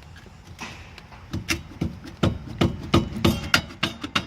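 Rear wheel hub assembly being knocked loose from the rusted axle carrier of a 2005 Scion xB: about ten sharp knocks at an irregular pace, starting about a second in.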